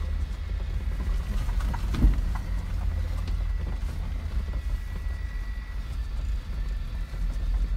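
Off-road vehicle driving slowly over a rutted, muddy track, heard from inside the cabin: a steady low engine and drivetrain rumble, with one sharp knock of the body or suspension jolting about two seconds in.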